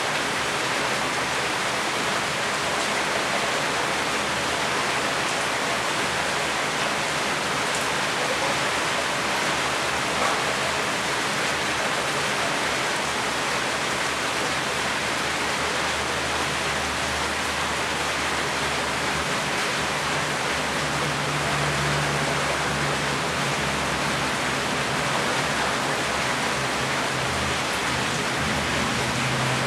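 Steady rain falling, an even, unbroken hiss of water. A faint low hum joins in about two-thirds of the way through.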